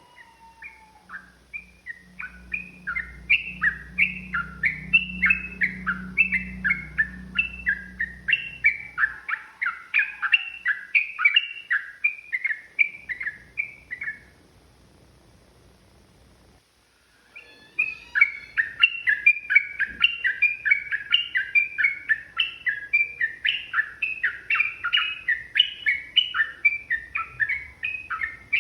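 Yellow-vented bulbul (trucukan) singing a long, fast run of bubbly chirping notes, about three a second. It pauses for a few seconds about halfway through, then starts again.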